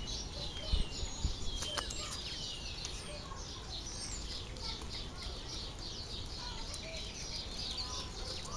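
Birds chirping in a quick, steady series of short high chirps, about three to four a second, with a few thin gliding whistles. A low rumble and a couple of soft knocks, most likely wind and handling on the microphone, sit underneath.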